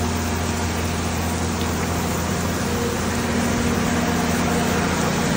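Steady rain hiss, with the low, steady hum of an idling engine underneath.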